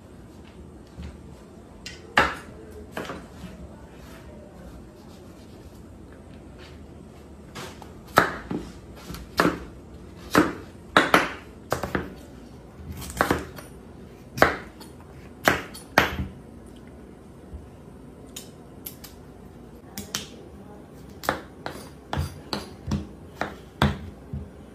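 Chef's knife cutting through raw pumpkin pieces and knocking on the cutting board, a string of irregular sharp knocks. They come thickest in the middle and again near the end.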